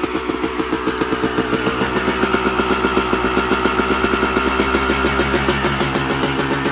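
2000 Yamaha YZ250's two-stroke single-cylinder engine idling after a cold start, with a steady, even pulse.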